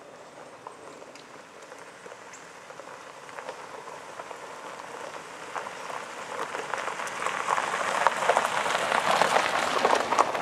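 An approaching Norfolk Southern mixed freight train: a dense clattering rail noise that grows steadily louder as the train nears.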